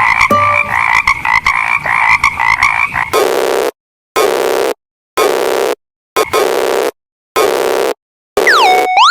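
Synthesized cartoon sound effects: a fast chattering rattle with a steady high tone over it for about three seconds, then five even buzzing blasts about a second apart with silence between, and near the end tones sliding up and down.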